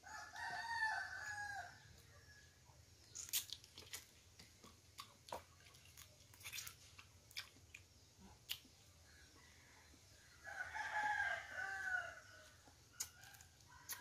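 A rooster crows twice, once at the start and again about ten and a half seconds in, each crow lasting about a second and a half. Between the crows come scattered short, sharp cracks and clicks of crab shell being broken apart by hand and chewed.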